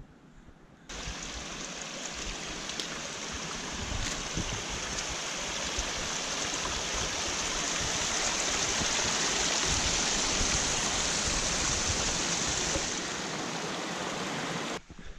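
Small mountain creek cascading over rocks, a steady rushing and splashing that grows louder toward the middle. It starts abruptly about a second in and cuts off abruptly near the end.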